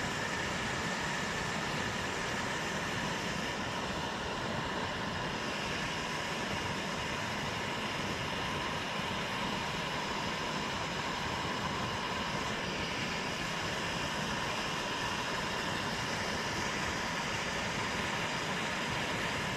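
Primus camping stove burner, fed by a hose from a fuel bottle, burning with a steady, even hiss.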